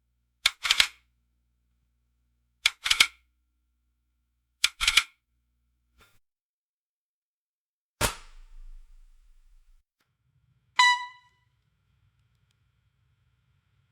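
Judge's gavel knocking in quick double strikes, three pairs about two seconds apart, then a single heavier strike with a short ringing tail. Near the end comes one brief, pitched, bell-like ding.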